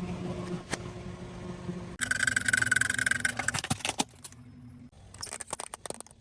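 A car running slowly with a steady low hum. About two seconds in comes a loud burst of crackling with a high squeal lasting over a second as the tyre rolls onto and crushes soft objects, then scattered crackles that thin out.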